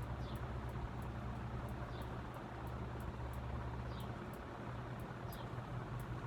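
Vintage 1990 Hunter Studio Series ceiling fan running on high: a steady motor hum with an airy whoosh, a faint high tick about three times a second, and a short high chirp every two seconds or so.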